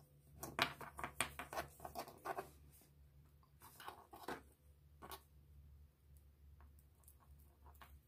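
Faint clicks and rustles of a fuse tap and its wire with a blue butt connector being handled by hand, busy for the first couple of seconds, then only a few scattered clicks.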